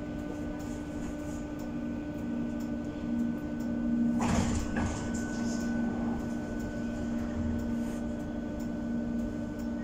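Berlin U-Bahn class H train standing at a station platform, its onboard equipment giving a steady low hum with a fainter high tone. About four seconds in there is a short rushing sound, with a weaker one just after.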